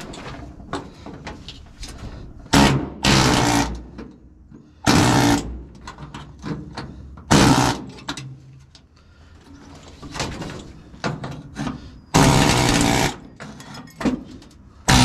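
Pneumatic air hammer with a chisel bit rattling against the steel cab floor of a 1950 Chevy 3100 in several short bursts, cutting through the spot welds of the old seat platform. Between the bursts there are clinks and scrapes of loose metal.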